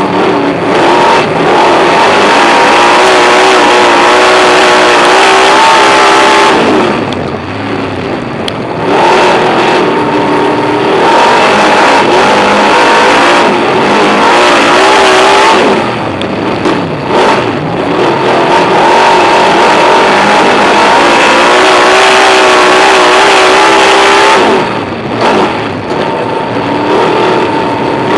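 Superstock speedway car's V8 engine heard from inside the cockpit, held at high revs down the straights. It eases off three times, about nine seconds apart, as the driver lifts for the turns, then climbs back to full throttle.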